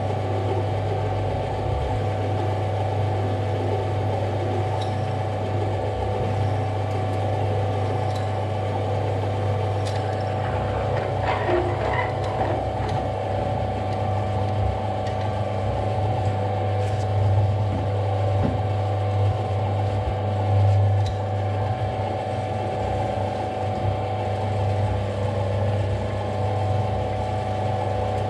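Metal lathe running slowly with a steady motor hum while a machine reamer in the tailstock chuck is fed into the bore of an off-centre block, finishing a 5/8-inch hole; the cutting turns rougher for a couple of seconds about eleven seconds in.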